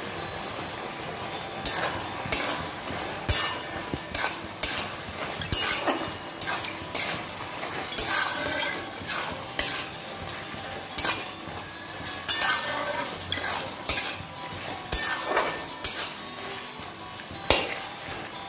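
Flat metal spatula scraping and clinking against a metal kadai as a thick curry is stirred, in irregular strokes somewhat more than one a second. Under the strokes runs a soft sizzle of the curry cooking on the heat.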